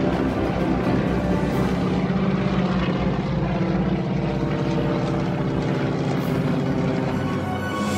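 Formation of propeller-driven airshow planes flying overhead, a steady engine drone.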